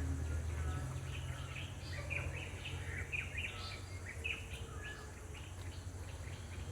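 Birds chirping and tweeting in many short, high calls, thinning out near the end, over a steady low rumble.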